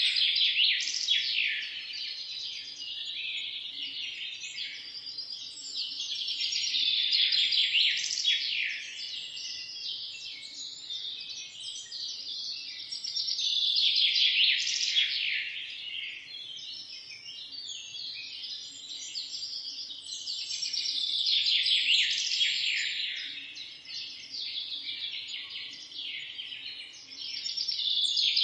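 A dense chorus of many small birds chirping and trilling together, swelling and easing in waves every several seconds.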